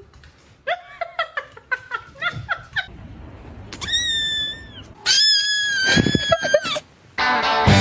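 A string of short, rising, squeaky cries, then two long shrill screams of about a second each. Music comes in near the end.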